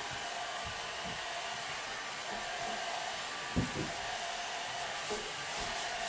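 Hair dryer running steadily, an even blowing hiss with a constant motor hum. Two soft knocks come through about three and a half and five seconds in.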